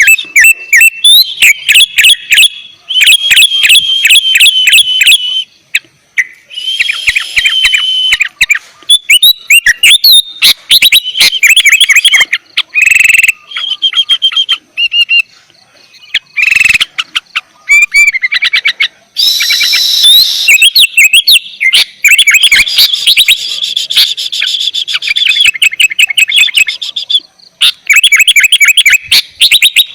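Sooty-headed bulbul (kutilang) singing loudly in repeated bursts of rapid notes, with short gaps between the phrases.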